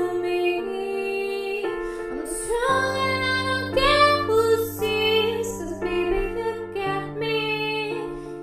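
Background music: a woman's singing voice carrying a melody over held low notes that change a few times.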